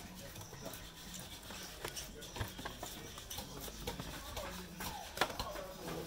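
Faint background voices with scattered sharp knocks and taps, the loudest knock about five seconds in.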